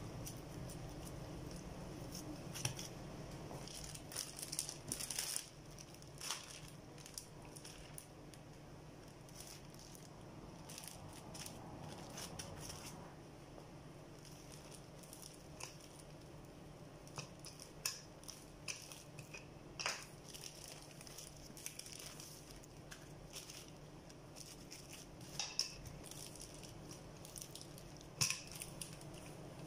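Faint crinkling and clicking of plastic sheeting as gloved hands squeeze rice-kibbeh dough and then flatten it under the plastic with a wooden rolling pin, with a steady low hum underneath. The crackles come thick in the first few seconds and sparser after.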